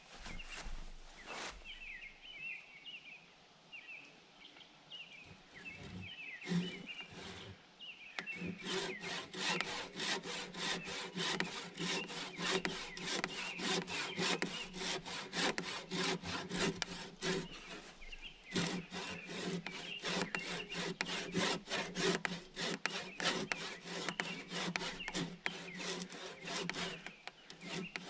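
Handsaw cutting into a log. A few separate strokes start the kerf, then steady, quick back-and-forth sawing begins about eight seconds in, with a brief pause a little past halfway.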